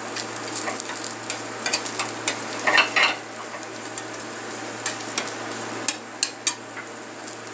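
Egg, potato and onion omelette mixture sizzling in a hot oiled iron frying pan on high heat as it sets, with irregular scrapes and taps of a turner against the pan while the omelette is pushed into shape. A louder scrape comes about three seconds in.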